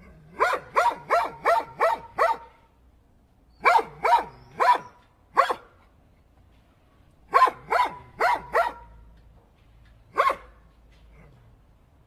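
A dog barking in quick runs: six barks, then four, then four, then one single bark near the end.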